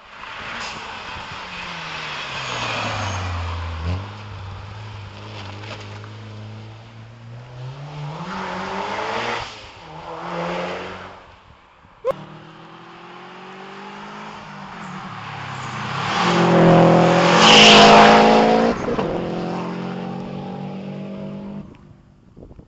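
A rally car driven hard past the roadside: the engine note drops as it slows for a bend, then climbs as it accelerates away. After a sharp click about twelve seconds in, a second fast pass follows, loudest about three-quarters of the way through, with the engine rising in pitch before it fades.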